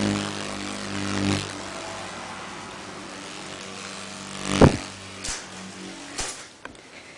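Rainbow stag beetle's wings buzzing in a low, steady hum as it takes off and flies, loudest for the first second and a half and then fading. A loud knock comes about four and a half seconds in, with a few softer knocks after it.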